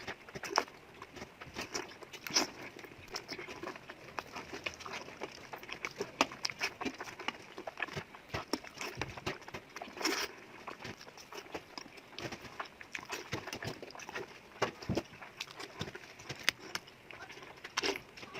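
A person eating noodles close to the microphone: wet chewing and slurping, with many irregular short smacks and clicks.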